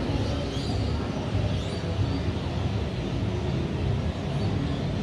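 City night ambience: a steady low rumble with a faint hiss and a few faint high chirps now and then.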